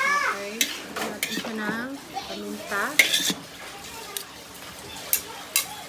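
Metal spatula scraping and clanking against a wok as shredded cabbage and carrots are stir-fried, with the vegetables sizzling. The sharpest clanks come about three seconds in and again near the end.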